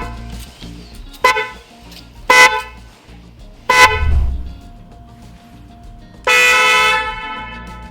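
Jaguar TST aftermarket horn honking: three short blasts about a second apart, then one longer blast of under a second near the end.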